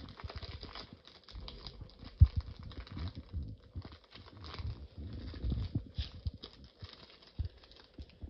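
Pokémon trading cards and their foil pack being handled: irregular rustling, soft taps and low thumps as the cards are flipped through, with one sharp knock about two seconds in.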